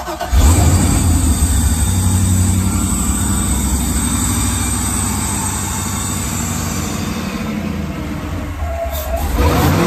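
LS V8 with an LSA supercharger and a Brian Tooley Stage 2 cam, in an inboard boat, starting up and running at an unsteady idle, with the sound swelling again near the end. The engine is not yet tuned and keeps wanting to stall.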